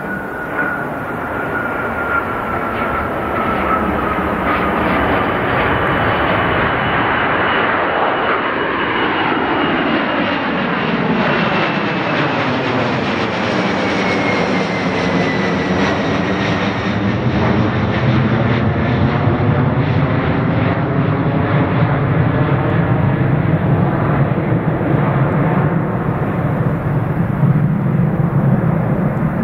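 Boeing 767-300ER's twin jet engines at takeoff power as it lifts off and climbs away: a continuous loud jet roar with a high whine that drops in pitch as the aircraft goes past. The roar swirls as it passes overhead, then settles into a deeper rumble as it departs.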